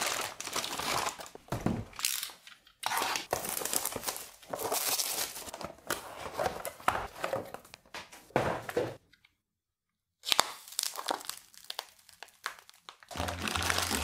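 Plastic packaging crinkling and rustling in irregular bouts as 3D-printer filament spools are handled and pulled out. The sound cuts out completely for about a second around nine seconds in, then picks up again.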